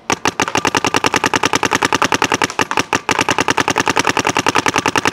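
Paintball marker fitted with an HK Army XV 15-inch one-piece barrel firing a rapid string of shots, about ten a second, with a brief break about three seconds in, emptying the hopper.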